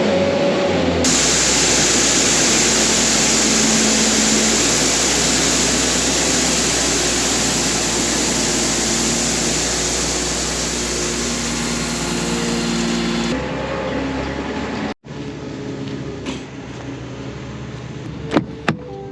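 Loud, steady mechanical noise, like a machine running close by. It starts abruptly about a second in and cuts off suddenly after about twelve seconds, followed by quieter running noise and a few sharp clicks near the end.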